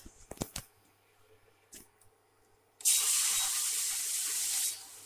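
Hot sugar syrup poured from a pan onto ghee-roasted semolina for halva, hissing and sizzling loudly for about two seconds, then settling to a softer sizzle. A few light clicks near the start.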